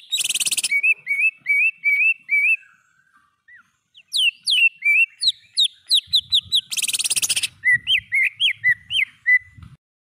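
Greater green leafbird (cucak ijo) singing: strings of quick, clear whistled notes, broken twice by a short harsh rasp. There is a pause of about a second in the middle, and the song stops shortly before the end.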